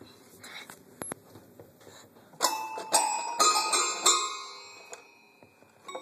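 A toddler bangs a handful of random notes on a toy piano, one after another, about two and a half to four seconds in. The notes ring on briefly and fade.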